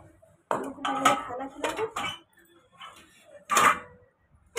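Steel cooking pots and a ladle clattering and knocking on a gas stove, with a louder ringing metal clink about three and a half seconds in.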